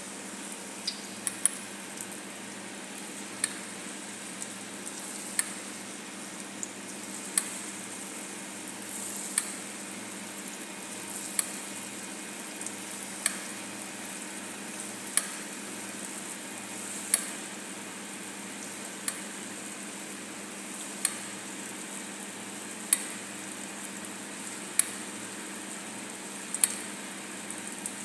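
Geimat dough balls frying in hot oil with a steady sizzle, and a utensil clicking against the pan about every two seconds as they are stirred.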